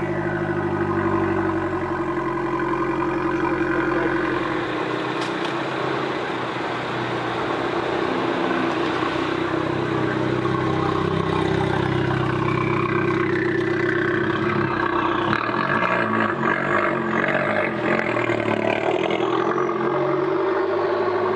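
Abarth 695 XSR's 1.4-litre turbocharged four-cylinder engine, breathing through its Akrapovic exhaust, running at idle just after start-up. The pitch drifts up and down a little in the middle as it settles.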